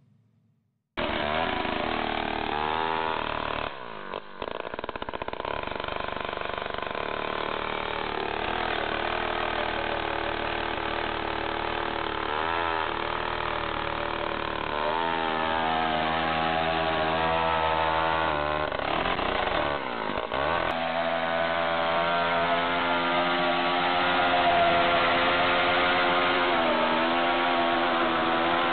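Gas-powered ice auger's small engine running at high revs as its spiral bit drills through the ice, its pitch dipping and recovering a few times as the load changes. It starts about a second in.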